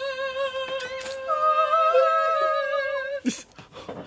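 Voices singing one long held 'aah' note with a slight vibrato. A second, higher note joins about a second in, and both stop together after about three seconds.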